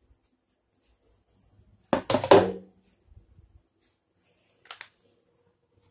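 A few sharp knocks and a clatter of steel utensils being handled and set down on a stone kitchen counter. The loudest clatter comes about two seconds in and rings briefly, and a fainter knock follows near the end.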